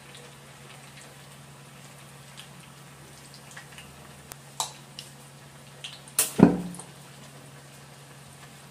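Batter fritters deep-frying in oil in a wok, a steady faint bubbling sizzle with scattered small pops. A few sharp knocks stand out, the loudest about six seconds in with a short ring after it, from a metal spoon or strainer striking the wok.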